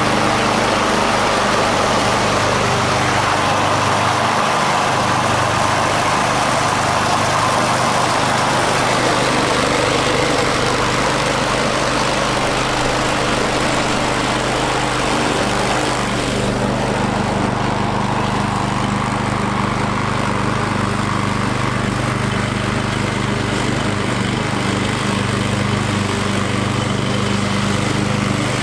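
Gas walk-behind lawn mower engine running steadily, just after being coaxed back into starting. About sixteen seconds in its tone shifts, becoming less hissy and heavier at the low end.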